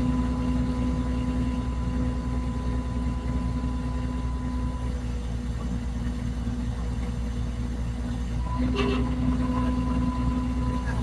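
An engine running steadily with a low rumble and a constant hum. A short knock comes near the end.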